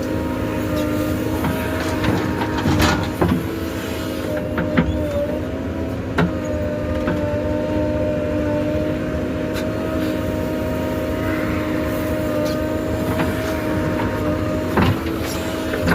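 JCB excavator's diesel engine running steadily with a hum, and a few sharp knocks here and there.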